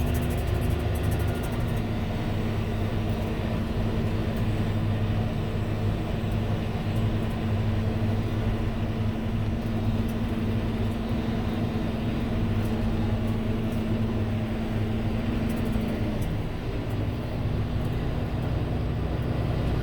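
Heavy farm machinery engine running steadily under load, a continuous low hum. Its tone drops a little in pitch about three quarters of the way through.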